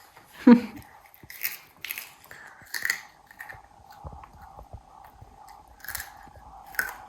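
A person biting and chewing raw carrot, with several crisp, separate crunches spread over a few seconds. A short, loud voice sound about half a second in is the loudest moment.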